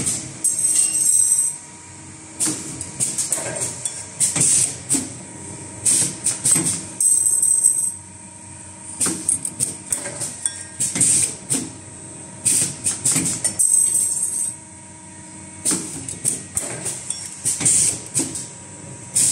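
Automatic flat-wire ring making and butt welding machine cycling as it forms flat iron wire into rings: bursts of hiss and metallic clattering come every two to three seconds over a steady machine hum.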